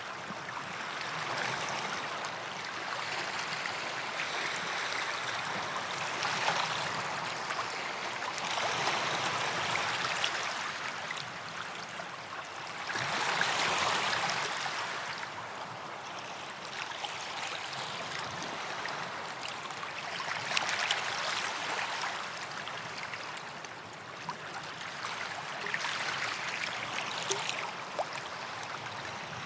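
Small sea waves washing up a white-sand beach and draining back, rising and falling every few seconds, with a fizzing wash between swells.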